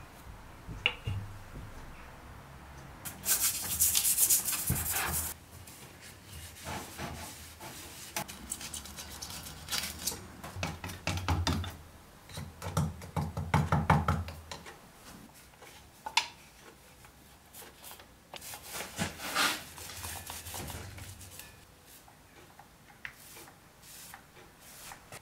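Scraping, rubbing and light knocks from handwork with small metal paint tins: paint being stirred with wooden sticks and then brushed onto a steel part. The sound comes in irregular strokes and clinks, with two louder stretches of scraping.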